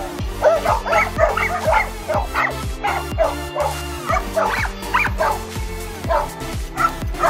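Dogs barking and yipping rapidly, several calls a second, over background music with a steady beat.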